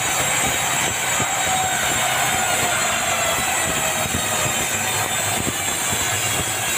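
Sawmill band saw cutting lengthwise through a dry bengkirai (yellow balau) log, a steady, loud, hissing cut that does not let up.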